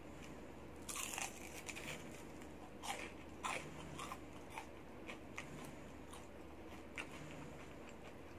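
Biting into and chewing a crispy batter-fried enoki mushroom fritter: a burst of crisp crunches about a second in and again around three seconds, then smaller, sparser crunches as the chewing goes on.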